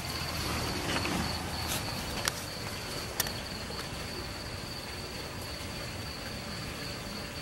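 Crickets chirping in a steady, continuous high trill, with two sharp clicks about two and three seconds in.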